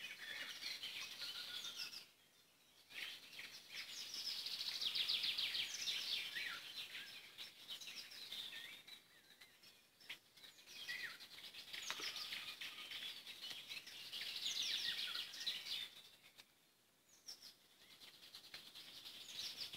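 Songbirds singing: long phrases of fast trills and quick down-slurred notes, broken by two short pauses.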